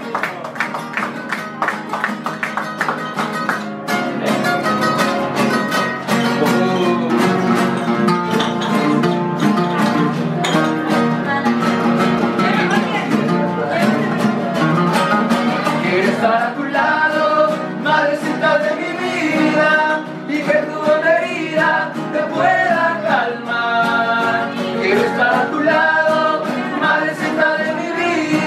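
Several acoustic guitars strumming and picking together, with voices singing a song; the singing grows stronger about halfway through.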